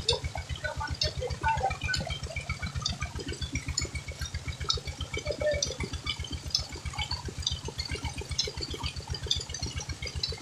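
Tubewell water gushing from an outlet pipe and splashing onto a woven cot, with a steady low rhythmic pulsing of about five beats a second beneath it.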